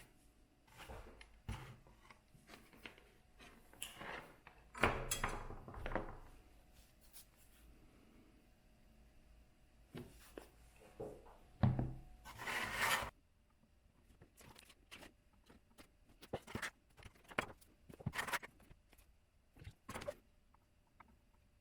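Irregular clicks, taps and scrapes of small parts being handled by hand, with two longer scraping or rustling spells, about five seconds and about twelve seconds in.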